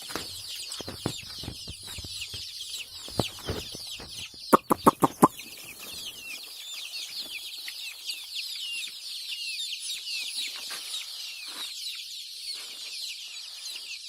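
A large flock of chickens on a poultry farm calling constantly, a dense chorus of short, high-pitched peeps that fall in pitch. A quick run of five sharp knocks comes about four and a half seconds in.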